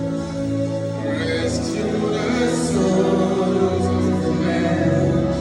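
Gospel worship music: sustained chords with voices singing held, wordless or unclear notes.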